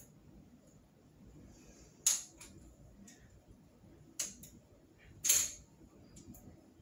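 Sharp clicks and knocks from a new crutch being handled and adjusted: three louder ones about two, four and five seconds in, the last the loudest, with a few lighter ticks between.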